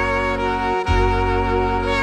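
Background music: sustained held chords, changing to a new chord a little before the middle.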